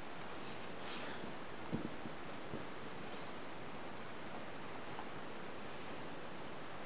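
Dog licking another dog's face: soft scattered clicks and wet smacks over a steady hiss, with a light knock a little under two seconds in.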